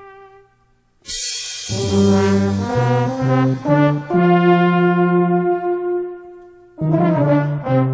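Brass band music: a held note dies away, a crash comes about a second in, then low brass notes and a long held chord, with a new phrase of short notes starting near the end.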